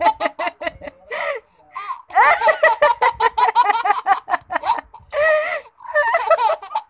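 A toddler laughing in several bursts of quick, pulsing giggles with short pauses between. The longest run starts about two seconds in and lasts nearly three seconds.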